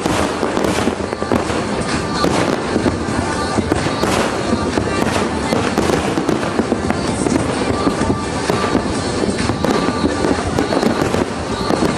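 Aerial fireworks display going off in rapid succession: a dense, continuous barrage of bangs and crackles with no pause.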